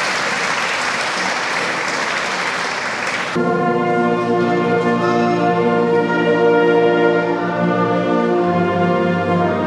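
Audience applause for about three seconds, then a concert band of brass and woodwinds comes in with slow, sustained chords, a low bass note joining near the end.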